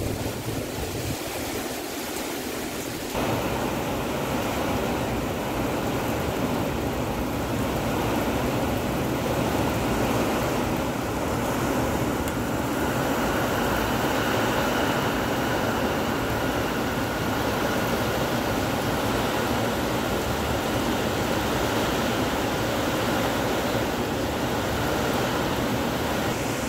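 Typhoon wind and rain: a steady rushing noise that grows louder about three seconds in and then holds.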